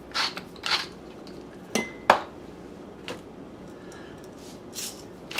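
A spoon stirring sauce in a saucepan, scraping in a couple of strokes, then a sharp metallic clink about two seconds in as the utensil knocks against the pan, followed by a few lighter taps.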